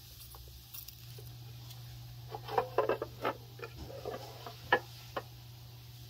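An irregular series of light clicks and crackles from metal tweezers and fingers handling a dry cicada wing against a clear acrylic ant nest, coming in a cluster between about two and a half and five seconds in, over a low steady hum.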